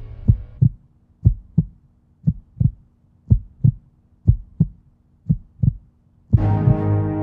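Heartbeat sound effect: six double thumps (lub-dub), about one a second, over a faint steady tone. A held music drone cuts off just after the start, and loud sustained music with brass comes in suddenly near the end.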